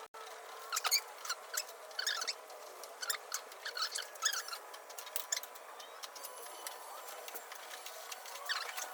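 Sped-up time-lapse sound of work on a car door's window glass and runners: a quick irregular string of small clicks and short high squeaks.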